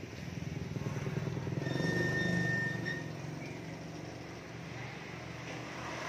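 Motorbike engine running, swelling over the first two seconds and then easing off, like a bike going past. A thin, high, steady tone sounds for about a second in the middle.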